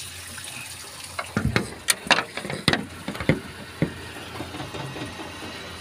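A quick run of sharp metal clicks and knocks, about eight in two and a half seconds starting a little over a second in, as the removed Volvo D13F engine thermostat and its seal ring are handled and set down on a painted sheet-metal panel.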